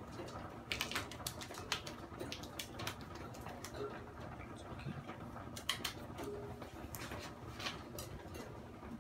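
Irregular light clicks and taps, a few sharper ones about a second in and near six and eight seconds, over a low steady hum.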